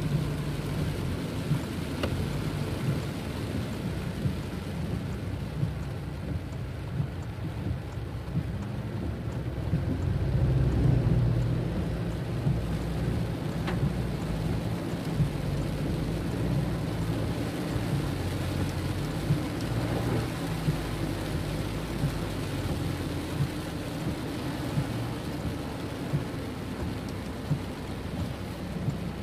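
Rain beating on a car's windscreen and roof, heard from inside the moving car, over a steady low road and tyre rumble that swells for a couple of seconds about ten seconds in.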